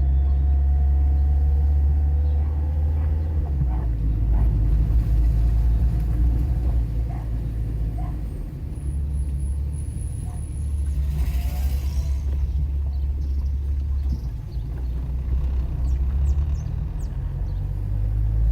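A car's engine and road noise heard from inside the moving car: a steady low drone throughout, with a brief rushing hiss about two-thirds of the way through.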